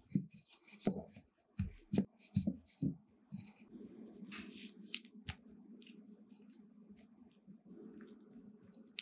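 Wooden rolling pin rolling out a round of bread dough on a mat, giving a run of short low knocks and rolls over the first three seconds. After that a steady low hum with a few light clicks.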